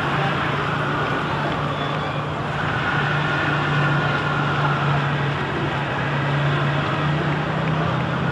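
Steady low engine hum over a wash of outdoor noise.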